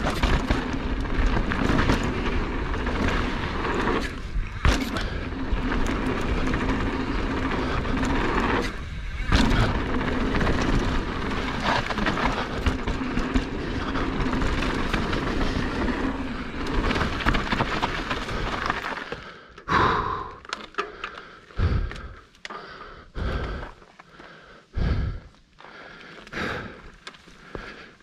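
Mountain bike riding down a dirt trail: a steady rush of tyre and wind noise with sharp knocks and rattles from the bike over bumps. About twenty seconds in it slows to a stop, leaving separate scuffs and knocks.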